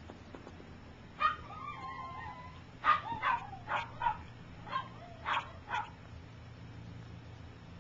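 Three-week-old Shih Tzu puppy crying: one drawn-out whine about a second in, then a run of about seven short, high yelps.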